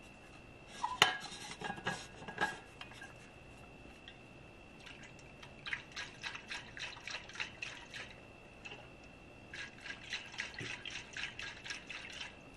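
Water sloshing inside a Yeti Rambler Jr stainless steel kids' bottle held upside down and shaken hard, with its lid and handle rattling. A few knocks come about a second in, then two bursts of rapid shaking strokes later on, the sealed lid holding.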